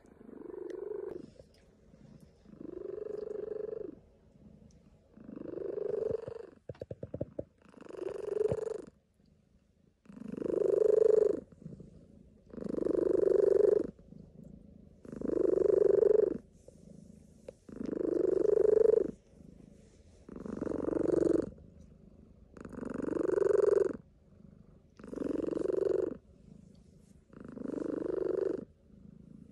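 Domestic cat purring close to the microphone, in regular swells about every two and a half seconds. There is a short run of clicks about seven seconds in.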